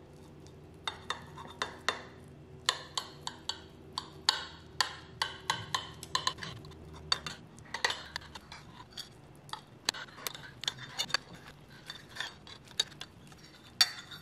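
Knife blade and metal chopsticks clinking against a ceramic plate while slicing a thin rolled egg omelette into strips. The clinks are sharp and irregular, several a second, starting about a second in.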